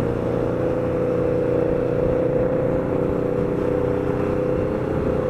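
300 cc motorcycle engine running at a steady cruising speed, a constant engine tone over wind and road noise, with no change in revs.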